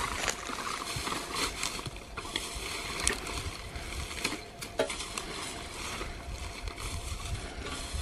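Dry straw and cane stalks rustling and crackling as they are stirred with a stick and trodden on, with scattered light knocks and clicks.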